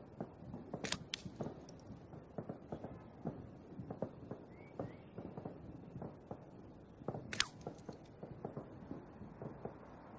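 Slingshot shots: two sharp cracks, about a second in and again about seven seconds in, as clay pellets strike the sunflower-seed targets and the stone paving near the camera.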